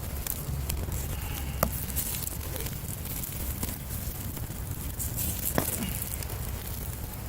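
Wood campfire burning, crackling with small ticks and two sharper pops, one a second or two in and one near the end, over a steady low rumble.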